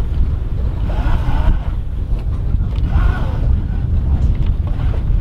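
Wind buffeting the microphone, a steady low rumble, with a couple of faint brief pitched sounds about a second and three seconds in.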